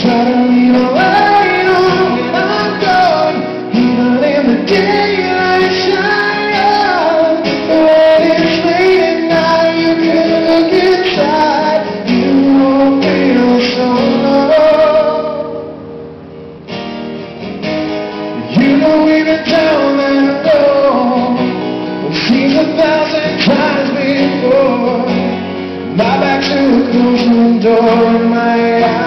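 Live acoustic rock song: a male voice singing over strummed acoustic guitars. The music drops away briefly about halfway through, then picks up again.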